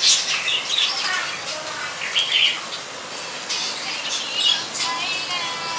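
Birds chirping and calling, with many short, bright calls scattered throughout.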